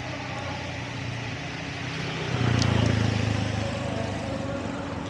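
Motor vehicle engine running steadily, swelling louder about two seconds in for a second or so and then easing back.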